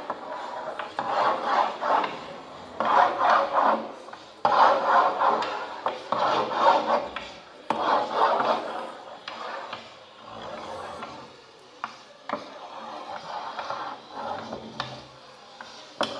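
Electronically amplified scraping and rubbing of hand-made marks on a long paper-covered table, in rhythmic strokes about a second and a half apart. The strokes are loudest for the first nine seconds or so, then turn softer, with a few light taps.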